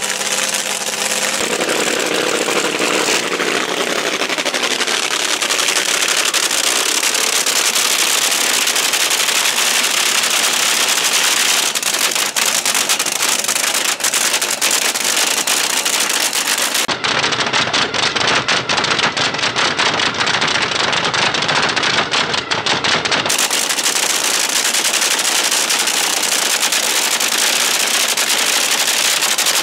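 Nitromethane-burning fuel altered drag racing engines running at close range, with a loud, dense, rapid crackle from the open header pipes. Several clips are cut together, and the sound changes character between about 17 and 23 seconds.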